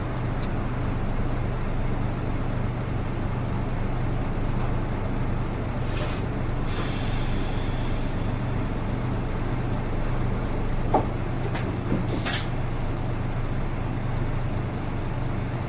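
Hino RA274 city bus engine running steadily, heard from inside the cabin. The uploader says this bus's engine sounds different from the other RA buses. About six seconds in there is a short hiss of air, and a few sharp clicks come near the eleven-to-twelve-second mark.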